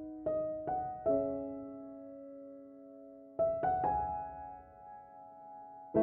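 Background music: slow, gentle piano, a few notes and chords struck in small groups and each left to ring and fade.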